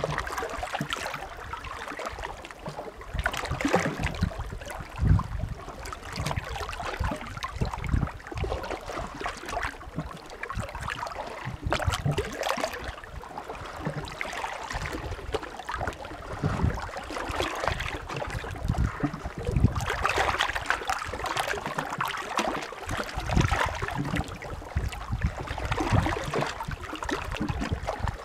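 Small sea waves lapping and splashing at the shore: a steady wash of water broken by frequent, irregular splashes.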